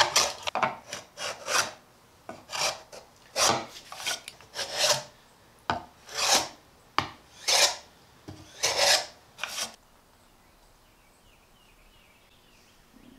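Hand plane shaving along the edge of an oak board, a run of rasping strokes: quick, short strokes at first, then slower strokes about one a second, stopping about three-quarters of the way through.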